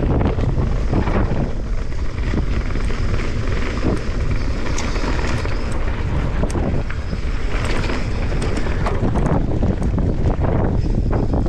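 Wind buffeting the microphone over the rumble of a Santa Cruz Megatower enduro mountain bike's tyres on a fast dirt-trail descent, with scattered clicks and rattles from the bike and loose stones.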